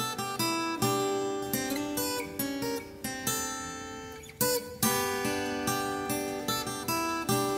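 Background music on acoustic guitar, strummed and picked, with notes ringing out and fading between strokes.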